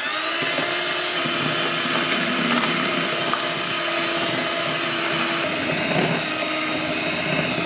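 Electric hand mixer (Ricco) running steadily at speed, its twin beaters whipping egg whites and sugar into a foam in a bowl. The motor's whine shifts slightly about five and a half seconds in.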